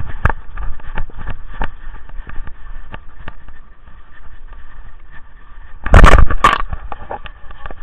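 Scraping and crunching of snow at a camera carried on a dog as it noses through the snow, with scattered clicks. About six seconds in come two loud knocks in quick succession.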